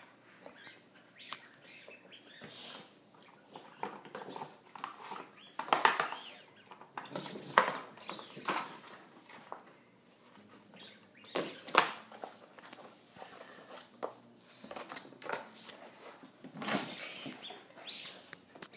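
A Shih Tzu puppy playing with a cardboard toilet-paper tube on a hardwood floor, making irregular scrapes, knocks and claw taps as the tube is pushed, chewed and knocked about. The loudest clatters come in clusters about six to eight seconds in, near twelve seconds and near seventeen seconds.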